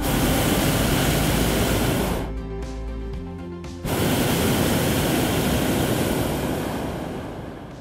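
Hot air balloon propane burner firing in two blasts, a loud rushing noise: the first lasts about two seconds, then after a short pause the second cuts in suddenly and fades out near the end.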